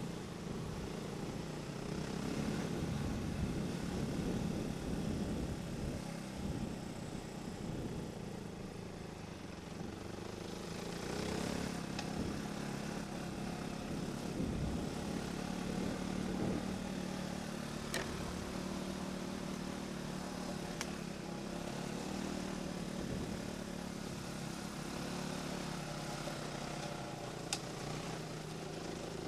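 Off-road motorcycle engine running at low, varying speed as the bike rides along a rough track, with a few sharp clicks.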